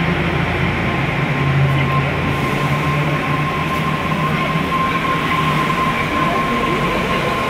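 Osaka Monorail 3000-series train pulling out of the station and gathering speed past the platform, its drive running with a steady high whine over a low hum.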